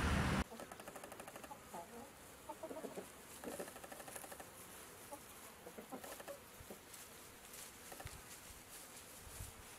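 A loud steady rush of noise cuts off about half a second in. Then chickens cluck on and off, short scattered calls over a quiet background.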